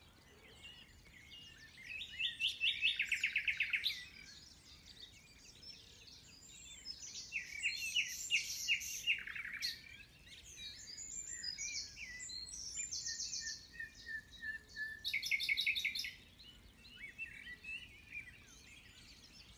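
Common nightingale singing: varied phrases of fast repeated notes, rattles and whistles, each a second or two long, with short pauses between them.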